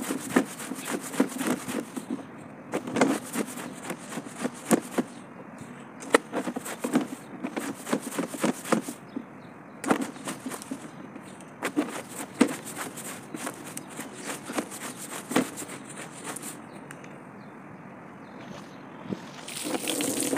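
Stiff-bristled push broom scrubbing a wet cloth against a flat panel: quick brushing strokes in bursts, with short pauses between them.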